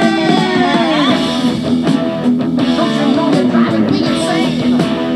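Background rock music led by guitar, playing steadily, with bent guitar notes near the start.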